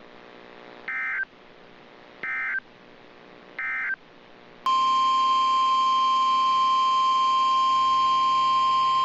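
Three short buzzing data bursts of an Emergency Alert System SAME signal, about a second apart, the end-of-message code closing a warning. Then, a little over four seconds in, a loud steady single-pitched alert tone near 1 kHz starts abruptly and holds: the weather radio warning alarm tone that opens the next warning.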